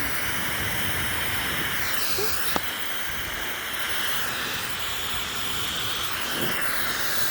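Hair dryer blowing steadily, its rushing sound changing in colour a couple of times. A brief click about two and a half seconds in.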